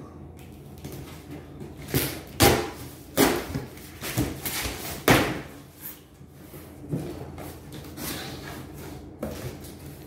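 Cardboard shipping box being opened by hand: a run of sharp scrapes and thumps from the flaps in the first half, then a few quieter rustles.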